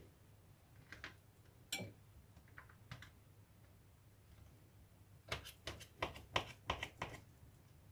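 Knife cutting soft string cheese into strips on a metal tray lined with plastic film: faint clicks and taps of the blade against the tray, a few scattered ones at first, then a quick run of them about five seconds in, lasting about two seconds.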